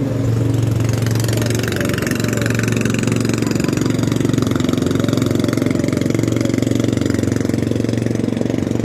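Engine running steadily with a fast, even beat.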